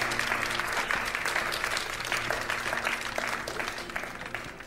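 A group of people applauding, the clapping fading away over a few seconds, with soft sustained background music underneath.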